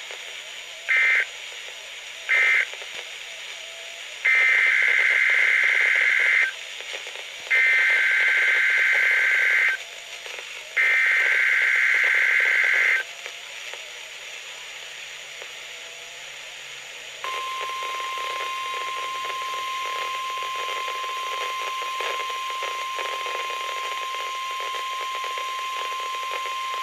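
Emergency Alert System SAME data bursts on NOAA Weather Radio: two short end-of-message bursts, then three longer header bursts of warbling two-tone data about a second apart, marking the end of one alert and the start of a new warning. After a pause of about four seconds, the steady 1050 Hz weather radio warning alarm tone begins and holds.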